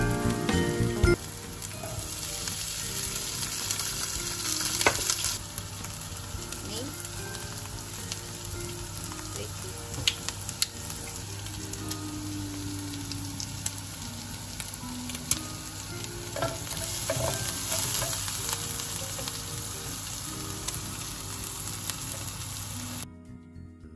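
Chopped onions, cashews and bits of meat sizzling in a nonstick grill pan, stirred and scraped with a plastic spatula, with scattered clicks of the spatula against the pan. The frying sound cuts off shortly before the end.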